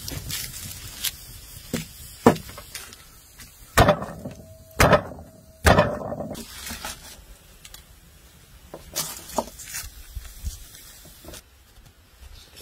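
Garlic cloves crushed under the flat of a cleaver on a wooden board, a palm slapping down on the blade: a few sharp smacks about a second apart around the middle, with a short ringing tone under them, among quieter handling clicks and rustles.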